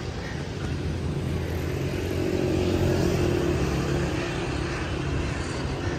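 Road traffic: a motor vehicle's engine hum swelling to a peak about three seconds in and easing off as it passes.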